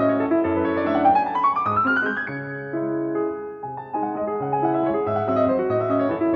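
Background piano music: held chords under a melody, with a quick rising run of notes about a second in.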